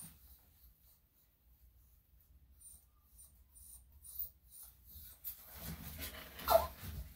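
Faint light scratchy ticks, then about six seconds in a Yorkshire Terrier puppy whimpers briefly amid rustling, a short cry that falls in pitch. The whimper is a reaction to hair being plucked from his ear canal with tweezers.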